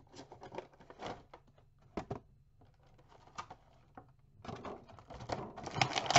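Plastic action-figure packaging being handled and opened: scattered crinkles and clicks that get denser and louder over the last second and a half.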